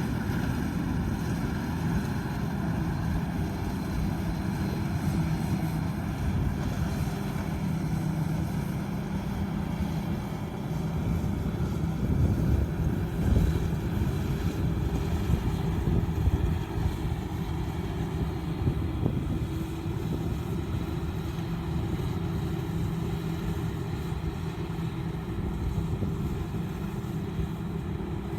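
Combine harvester running steadily: a low engine drone with a machine hum, briefly louder about halfway through.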